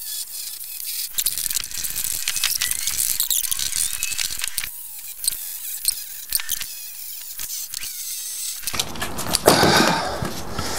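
Reciprocating saw cutting through the nails between a pallet's slats and frame: a steady high hiss with rapid clicking and faint squeals from the blade in metal. Near the end a louder, fuller rattle of wood as a slat comes free.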